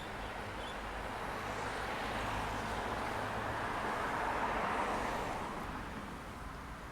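A motor vehicle passing on the road. Its tyre and engine noise swells to a peak about two-thirds of the way through, then fades, over a steady low rumble.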